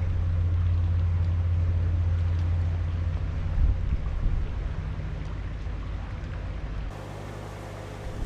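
Narrowboat's diesel engine running steadily at cruising speed, a low even hum, with a brief knock about three and a half seconds in.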